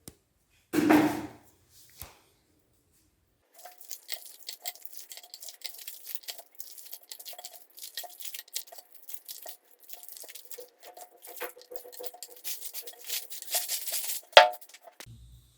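Wrappers being torn open and crinkled: a sharp tear about a second in, then some ten seconds of dense crackling, with a knock near the end.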